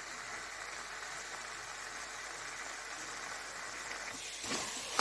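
Carrot halwa cooking in ghee in a pan, sizzling softly as a steady hiss. Near the end a spoon starts scraping through it.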